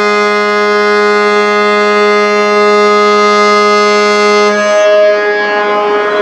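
Mogami-class frigate's ship horn sounding one long, steady blast. About four and a half seconds in, the low note drops out, and the sound thins to a fainter, rougher higher tone with a noisy haze.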